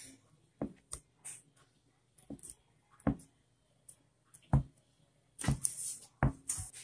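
Irregular soft knocks and thumps of fingers pinching pie-crust dough along the rim of a metal sheet pan, with a brief scuffle of handling a little after five seconds.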